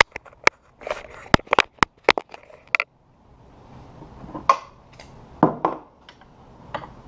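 Sharp clicks and knocks in quick succession for about three seconds, then a few scattered metal knocks over a faint steady hiss, as hands and a tool work on a partly disassembled Honda manual transmission's gear stack.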